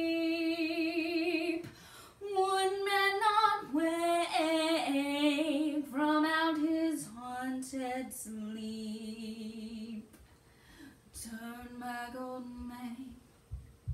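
A teenage girl singing solo and unaccompanied, holding long notes with vibrato in several phrases broken by short breaths. The singing falls quieter in the last few seconds and stops about a second before the end.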